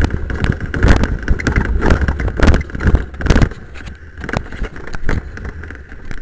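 Rover coupé driving over a rough, stony dirt track, heard from inside the cabin: low engine and tyre rumble with many sharp knocks and jolts as the body and suspension hit bumps. The jolting is heaviest for the first three and a half seconds, then the ride turns steadier.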